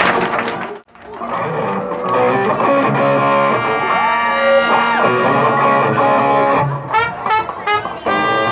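The loud end of a live rock band's song cuts off sharply about a second in. Electric guitar music with plucked notes then starts and carries on.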